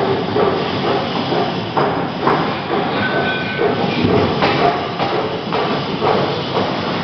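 Mill machinery running: a loud, steady mechanical clatter with irregular knocks throughout.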